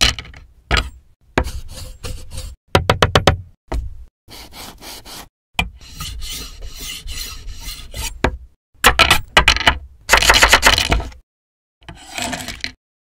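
Cooking sound effects on a wooden cutting board: short rubbing and scraping strokes, a quick run of clicks, a long rasping scrape, then a fast series of knife chops against the board.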